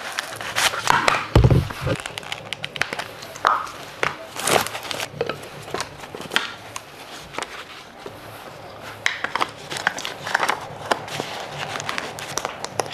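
A mat being unfolded and spread on the floor: irregular rustling and crinkling with scattered clicks, and a dull thump about a second and a half in.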